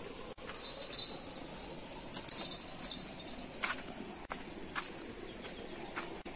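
Quiet outdoor ambience: a steady hiss with faint high-pitched chirps now and then and a few soft steps on a dirt path.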